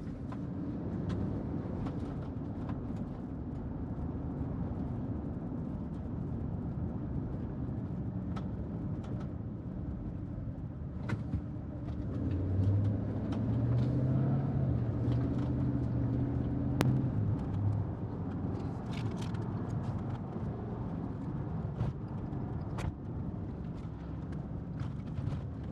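Car interior noise while driving: a steady low engine and road rumble, with the engine note rising for a few seconds about halfway through.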